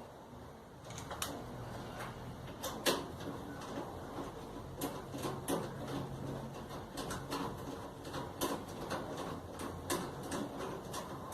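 Irregular clicks and light knocks of tools and clothes-dryer parts being handled during reassembly, with a low hum under the first several seconds.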